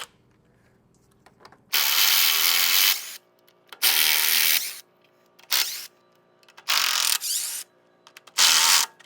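Power drill spinning a socket in a series of short bursts while backing out the bolts that hold the pump's manifold brackets. There are two runs of about a second each, then four shorter ones.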